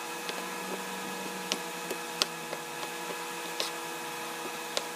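Kitchen knife cutting raw chicken breast into cubes on a plastic cutting board, giving about six sharp, irregular taps as the blade meets the board. A steady electrical hum runs underneath.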